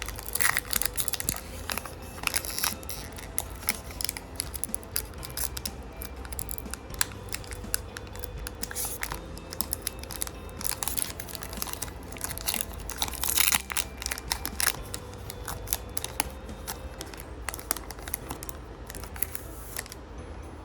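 Lorcana trading-card booster pack being torn open and its wrapper crinkled, with the cards inside rustled while they are handled. Irregular crackles come in clusters, densest at the start and again about halfway through.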